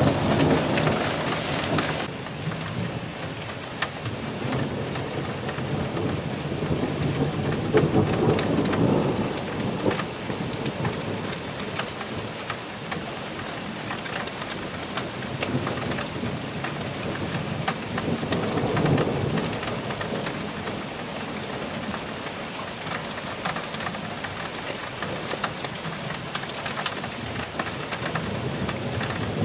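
Thunderstorm: steady rain pattering with low rumbles of thunder swelling at the start, again about eight seconds in and around nineteen seconds in. The rain hiss drops abruptly about two seconds in.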